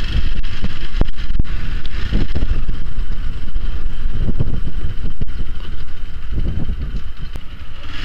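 Hero XPulse 200's single-cylinder engine running at low speed while riding, picked up on a close-worn lavalier mic along with heavy wind and road rumble. A few sharp clicks come through.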